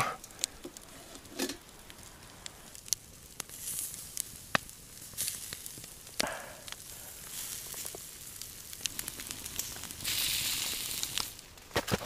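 Marinated pork steaks sizzling on a grill over a campfire, with scattered sharp pops and crackles. About ten seconds in comes a louder burst of hissing lasting about a second.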